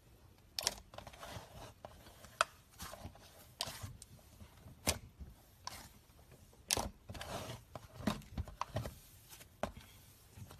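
Hands pressing, squishing and stretching a fluffy, fibrous slime: irregular sticky crackles, pops and smacking squelches every half second or so, with a few sharper pops standing out.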